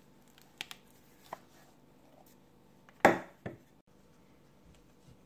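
Kitchen handling knocks on a wooden work surface: a few light clicks, then one sharp knock about three seconds in and a smaller one just after.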